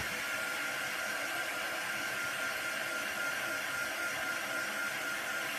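Handheld craft heat tool (embossing heat gun) running steadily: a fan's rushing air with a steady high whine, drying freshly stamped ink on a journal page.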